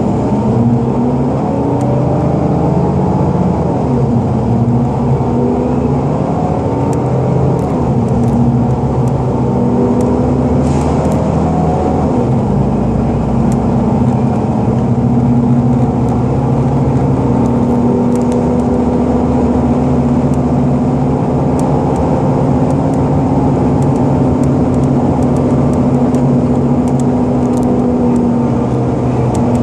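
Engine and drivetrain of a 2010 30-foot Gillig BRT transit bus running at road speed, heard from inside the cabin over steady road noise. The engine pitch rises and falls during roughly the first twelve seconds, then holds steady.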